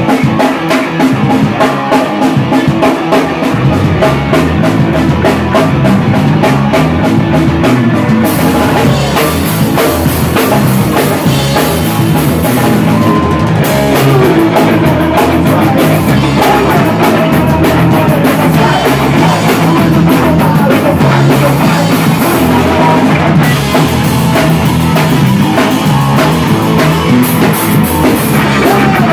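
Live rock band playing loud, electric guitars and a drum kit together, picked up close to the band.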